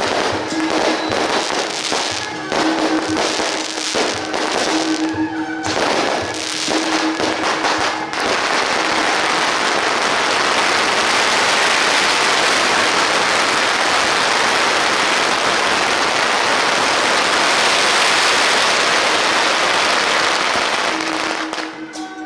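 Firecrackers going off in dense, fast crackling volleys. About eight seconds in they merge into one continuous, unbroken crackle of bangs lasting over ten seconds, which cuts back shortly before the end.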